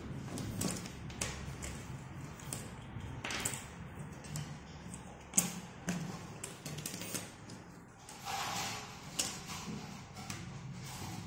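Cardboard jigsaw puzzle pieces handled and set down on a hard surface: scattered light taps and clicks, one sharper click about five seconds in, and a short soft rustle later on.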